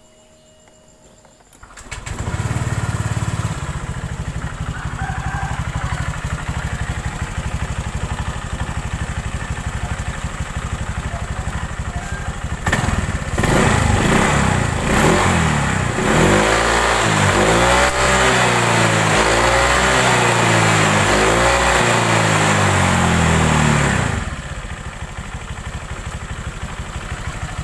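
Honda Vario 125 scooter's single-cylinder engine starts about two seconds in and idles. From about halfway it is revved up and down several times for some ten seconds, then settles back to idle. The revving is to bring out the rough rattling from the rear under mid throttle, which the uploader traces to a loose right-side air filter box.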